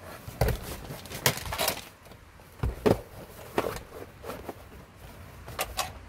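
Handling noise from a plastic portable car fridge being fitted onto a car seat: a string of sharp knocks and clicks against its plastic case and strap, with a brief rustle of a plastic bag.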